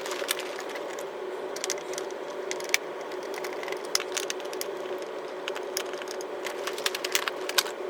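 Clicks, light knocks and rattles of a Hoover NanoLite upright vacuum being handled and moved, over a steady low hum.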